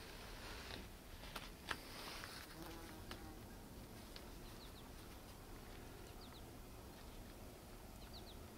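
Quiet ambience with a couple of soft knocks a second or two in, then faint, short high chirps in quick pairs every couple of seconds.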